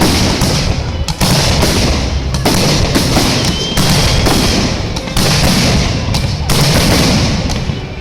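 Fireworks display: a run of loud bangs and crackling, with a fresh burst about every second and a half.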